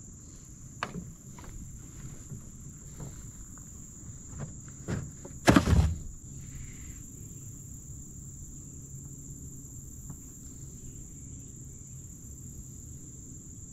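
Knocks and handling noises of a freshly caught crappie being put into the boat's fish box, with one loud thump about five and a half seconds in. A steady high insect drone runs behind.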